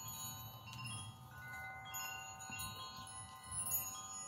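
Metal wind chimes ringing softly, several long tones at different pitches struck at scattered moments and overlapping as they ring on, over a low background rumble.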